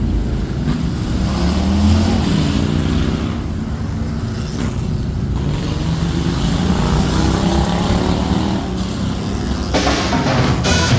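Motor vehicle engines running, their pitch rising and falling as they rev. Near the end a different, sharper and noisier sound cuts in.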